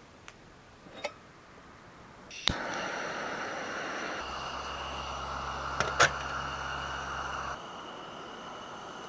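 Portable gas camp stove lit with a sharp igniter click about two and a half seconds in, then its burner hissing steadily. Two sharp metal clinks about six seconds in, as the stainless Sierra cup is set on the stove's wire trivet.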